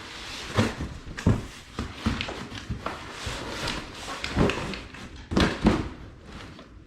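Shipping box and packaging being wrestled open by hand: irregular knocks and thumps with scraping and rustling. The loudest knocks come about half a second in and again between four and six seconds in.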